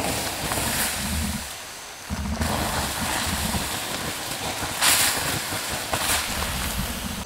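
A campfire's glowing embers being doused with water, hissing and sizzling as the fire goes out, in several surges, the loudest about five seconds in.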